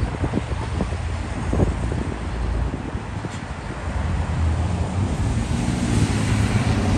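Road traffic on a multi-lane city street, cars driving past; the rumble builds over the last few seconds as a car goes by close.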